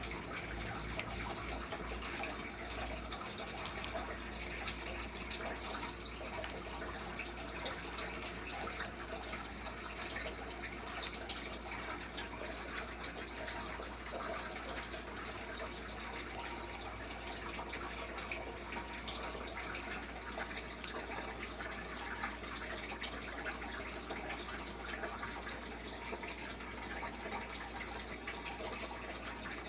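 Steady radio static: an even hiss with a low hum underneath.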